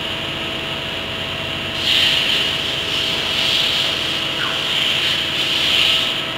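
Forklift running with a steady hum; about two seconds in a louder hiss comes in and rises and falls.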